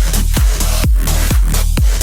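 Bass-boosted electronic dance music: a punchy kick drum on every beat, about two a second, over a deep sustained bass and a bright, busy top end.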